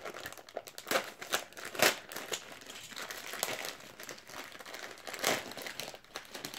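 Plastic foil wrapping of a trading-card starter pack crinkling and tearing as it is cut and pulled open, with a few sharper, louder crackles about two seconds in and again after five seconds.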